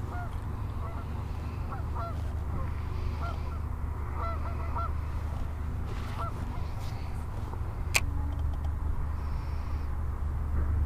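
Geese honking: a scattered series of short calls over the first six seconds or so, over a steady low rumble. A single sharp click about eight seconds in.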